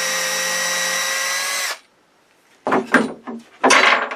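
DeWalt 12V MAX cordless drill running at a steady speed, boring a long bit down through MDF, then stopping abruptly about halfway through. A second or so later come two bursts of knocks and rattles as a cordless drill is set down on the wooden bench.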